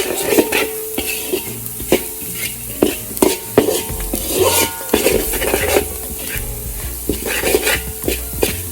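A utensil stirring and scraping chopped chilies, ginger, fenugreek seeds and chili powder as they sizzle in oil in a pan. It knocks against the pan with frequent irregular clinks.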